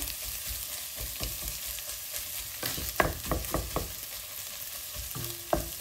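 Shredded chicken frying with a steady sizzle in a nonstick pot while a wooden spatula stirs it, with a quick run of scraping strokes about halfway through.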